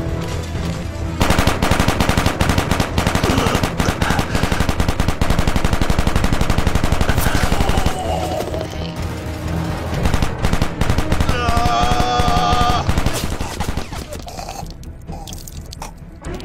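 Long bursts of rapid automatic gunfire, a movie-style battle sound effect, with music underneath. The firing is densest for the first several seconds, then thins out and dies down near the end.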